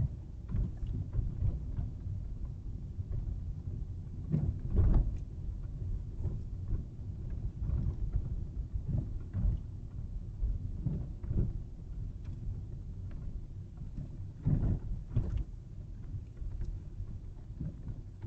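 A car driving over a rough street, heard from inside the cabin: a steady low rumble of tyres and suspension with irregular knocks and rattles. There are two heavier jolts, one about five seconds in and another about fifteen seconds in.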